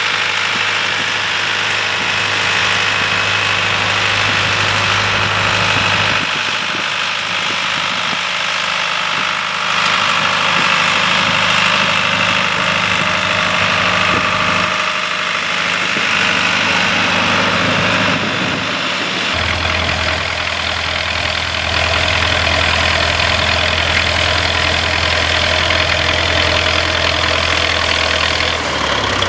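Farm tractor engine running steadily while plowing. Its low drone changes pitch a few times.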